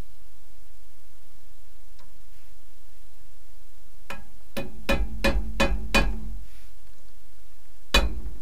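Hammer blows on the steel driveshaft and U-joint parts: six quick strikes, about three a second, starting about four seconds in, then one more near the end, each with a short metallic ring, over a steady low hum.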